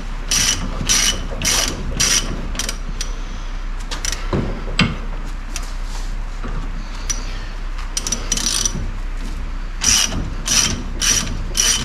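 Hand ratchet wrench clicking in repeated strokes as it winds the threaded rod of a coil-spring compressor on a car's suspension strut, about two to three clicks a second. There is a run in the first few seconds, a few scattered strokes in the middle, and another run near the end.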